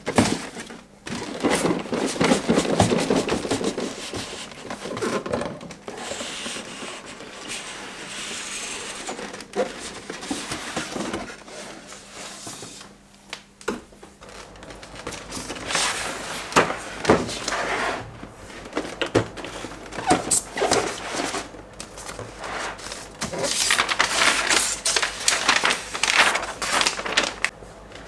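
A cardboard figure box being handled by hand: scattered taps and clicks, with stretches of rubbing and scraping as it is slid and turned over, the busiest near the end.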